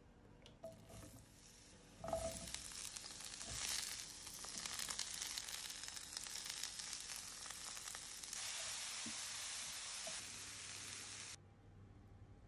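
Broccoli, zucchini, mushrooms and green pepper sizzling in hot olive oil in a frying pan. The sizzle jumps up with a knock about two seconds in, crackles steadily, and cuts off suddenly near the end.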